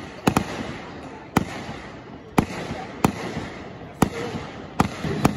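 Aerial fireworks bursting: sharp bangs about once a second, a couple of them in quick pairs, over a constant rumble of background noise. A low steady hum starts near the end.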